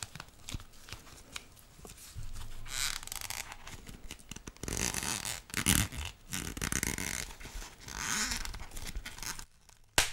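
Fingers picking at and peeling the plastic film on a plastic sausage tray, close to the microphone: several bursts of crinkling and scraping with short pauses between, and a sharp click near the end.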